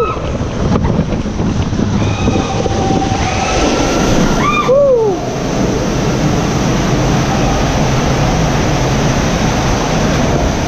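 Rushing, splashing water and an inflatable raft sliding at speed down a water-slide tube, with rushing air on the microphone. A rider whoops about halfway through.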